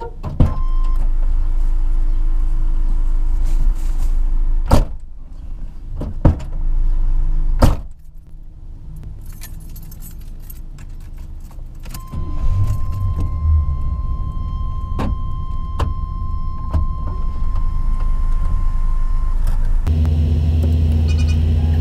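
Inside a 1984 Chevrolet Monte Carlo as the driver gets in: a door thuds, several sharp knocks, and keys jangle. About twelve seconds in, the engine starts and runs, louder near the end, while a steady warning tone sounds for several seconds.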